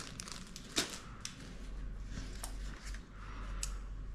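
Small plastic parts of a wiring kit, zip ties and plastic wire tubes, handled and rustling, with a few light clicks.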